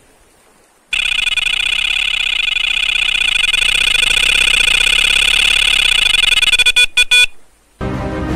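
Electronic carp bite alarm sounding a fast, unbroken run of high-pitched beeps for about six seconds, stuttering a few times before it stops: the signal of a fish taking line.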